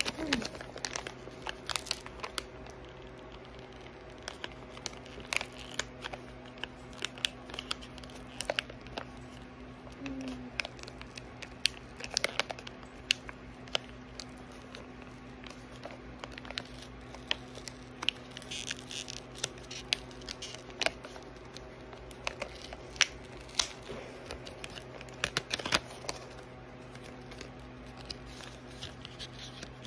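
Paper and cardboard packaging being handled and carefully opened by hand: irregular crinkling, small tearing and scattered clicks, with no steady rhythm.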